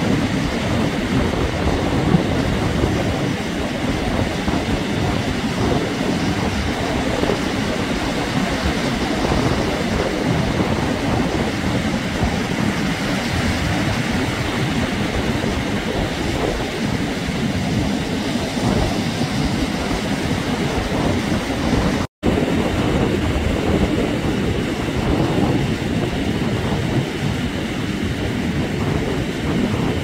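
Steady rush of surf breaking on a sandy beach, mixed with wind rumbling on the microphone. The sound cuts out completely for a moment about three-quarters of the way through.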